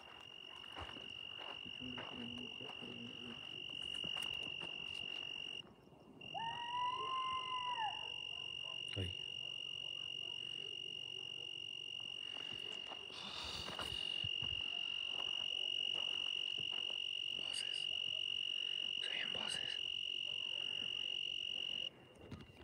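A cricket's continuous high trill, breaking off for a moment about five seconds in and stopping suddenly near the end. Around six seconds in, a short whistle-like call rises and falls.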